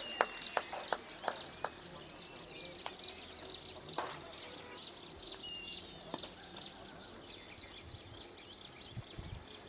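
Open-air ambience with faint bird chirps and high trills. It opens with a run of about eight sharp claps or knocks in the first two seconds.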